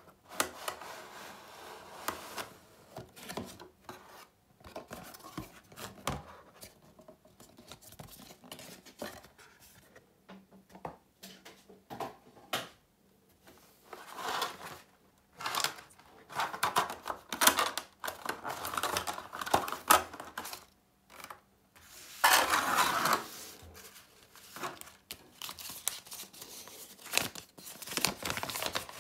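Unboxing handling noise: cardboard packaging and a plastic tray being handled, and plastic wrapping crinkling, in irregular clicks and rustles. Near the end, a folded paper manual rustles as it is opened out.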